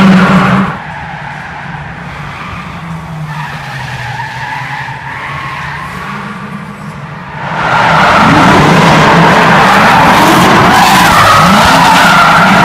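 Drift car engine revving hard with tyres screeching as the car slides sideways. Loud for the first second, quieter for several seconds, then loud again from about two-thirds of the way through, the revs rising and falling repeatedly.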